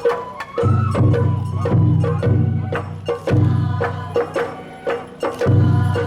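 Sawara-bayashi festival music: a bamboo flute melody over drums and rapid, sharp metallic and wooden percussion strikes, several to the second.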